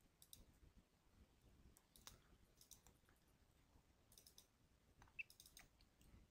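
Faint computer mouse clicks, several spread over a few seconds, some in quick pairs as folders are double-clicked, over near-silent room tone.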